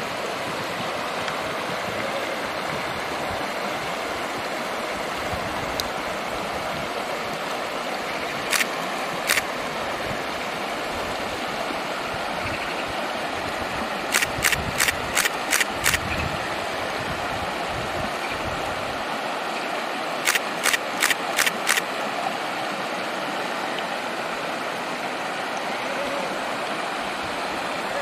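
A stills camera's shutter firing: two single clicks, then a rapid run of six and later a run of five, over a steady rushing noise.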